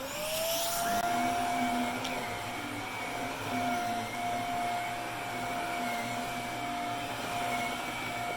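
Vacuum cleaner motor switched on, its whine rising in pitch and settling within the first second, then running steadily with a constant airflow hiss while vacuuming a rug.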